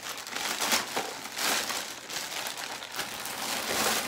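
Plastic packaging crinkling and rustling in uneven spells as a plastic poly mailer is opened and its wrapped contents pulled out.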